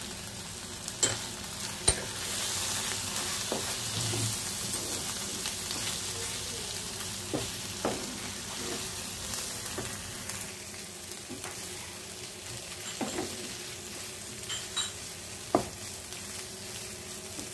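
Onions and spice powders sizzling in hot oil in a pan while being stirred together, the masala being fried. The sizzle is stronger in the first half, with a few short knocks and scrapes of the stirring spoon on the pan.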